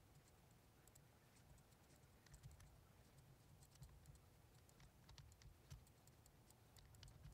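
Faint, scattered clicks of computer keyboard keys and a mouse over near-silent room tone, from quick shortcut-key and mouse work at a computer.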